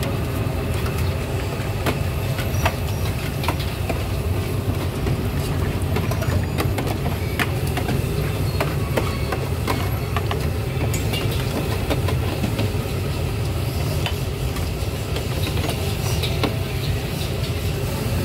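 Busy street-market background: a steady low rumble with frequent sharp clicks and clatter.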